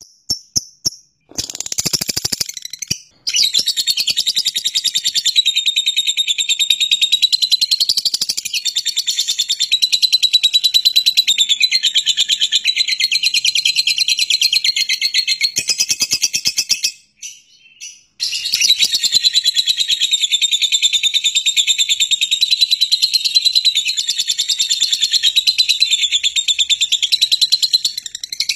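Fischer's lovebird giving its long 'ngekek' song: a fast, continuous, high-pitched chattering trill, breaking off briefly near the start and again for about a second a little past halfway before running on. It is the long chatter played as a lure to get other lovebirds to sing.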